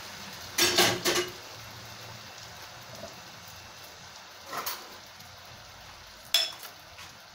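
Cubed potatoes cooking in mussel broth in a pot, giving a steady bubbling hiss, with a few sharp knocks: a quick cluster about a second in and single ones near the middle and near the end.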